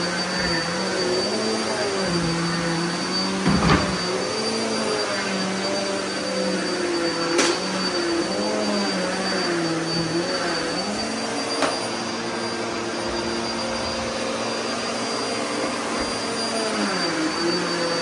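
Upright vacuum cleaner running on carpet, its motor pitch dipping and rising over and over as it is pushed back and forth, over a steady high whine. A few sharp knocks, the loudest about three and a half seconds in.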